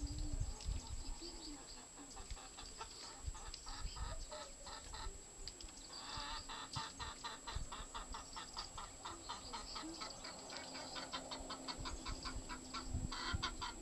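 Chickens clucking softly, with a fast series of short chirps starting about six seconds in.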